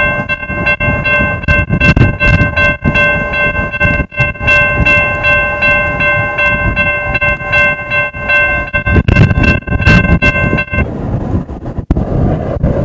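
Freight locomotive's multi-chime air horn sounding one long blast, a chord of several notes, over a heavy low rumble; the horn cuts off abruptly about eleven seconds in.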